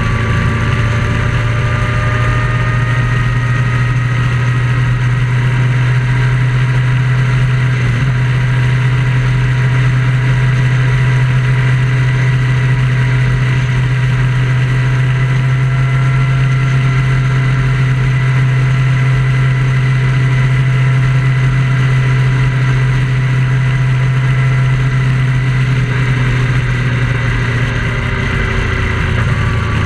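Vehicle engine running steadily at cruising speed on a highway, a constant low drone with road and wind noise. It eases off slightly near the end.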